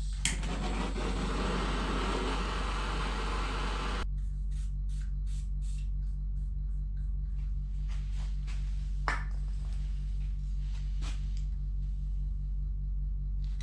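A handheld gas torch lit with a sharp click, its flame hissing steadily for about four seconds before it cuts off, heating engine studs to free them. After that come a few light metal clicks of tools on the studs, over a steady low hum.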